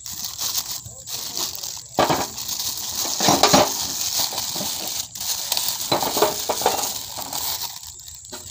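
Plastic bag crinkling and rustling as a new diesel-engine piston is unwrapped, with a few light metallic clinks of small parts on a steel cover.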